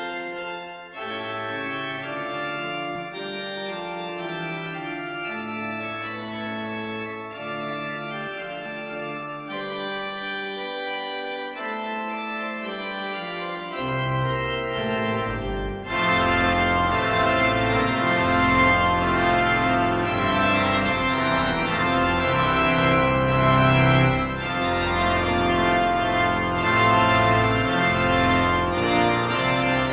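Pipe organ playing slow sustained chords. A low bass line comes in about 14 s in, and about two seconds later the sound grows fuller and louder.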